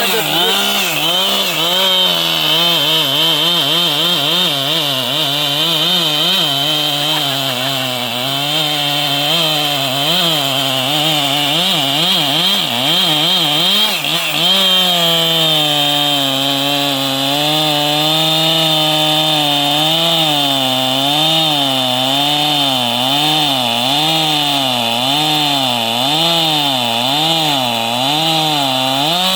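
Large two-stroke chainsaw running at high revs and cutting wood, its engine pitch wavering up and down continually as the chain loads and frees in the cut. About halfway through the pitch drops a little and the wavering becomes more regular.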